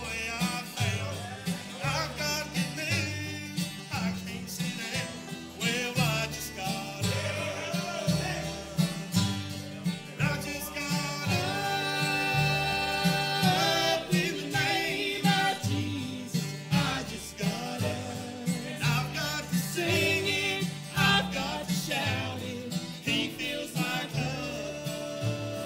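Bluegrass gospel band playing: acoustic guitars, five-string banjo and upright bass keeping a steady beat, with a man singing lead. About halfway through he holds one long note.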